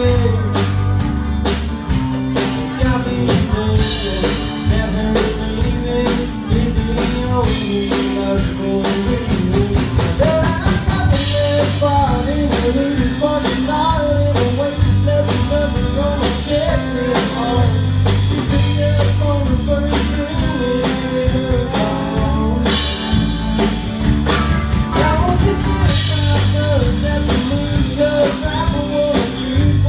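A rock band plays a cover song: a drum kit keeps a steady beat under bass and guitar, and a melody line wanders over them.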